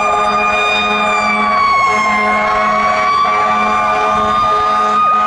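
Siren on a 2014 Seagrave Marauder II fire engine sounding while it responds: one strong high steady tone that sags slightly in pitch about two seconds in and climbs back, with a quicker, fainter wavering siren tone beneath it.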